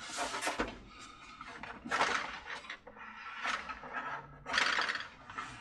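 Handling noise from the plastic carousel base and hand tools being moved on a workbench: a few short scraping and clattering sounds spread over several seconds.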